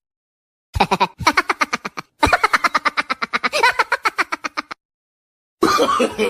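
A staccato laugh: a fast string of short, high-pitched 'ha' pulses, about nine a second, in three runs. It stops abruptly, and after a short silence another voice-like laugh begins near the end.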